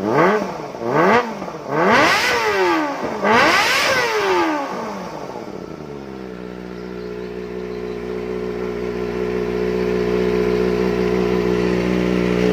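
Kawasaki Ninja ZX-25R's inline four-cylinder engine revved in two quick blips, then two longer revs, dropping back about six seconds in to a steady idle.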